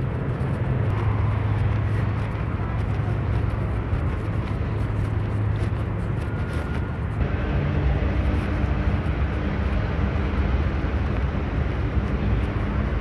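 Steady low engine drone over outdoor ambience, its pitch pattern shifting about seven seconds in, with a brief thin high tone shortly before.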